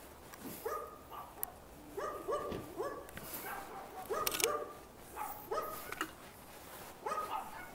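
A dog barking repeatedly in short barks, about a dozen in quick, irregular succession, with a couple of sharp clicks among them.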